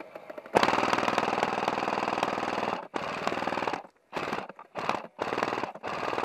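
Airsoft RPK electric gun firing on full auto: one long burst of about two seconds, then a string of shorter bursts with short pauses between them.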